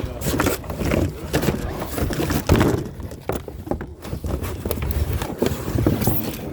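Plastic hose sections of a pool vacuum being pulled from their packaging, knocking and clattering together with rustling of the box, in irregular short knocks.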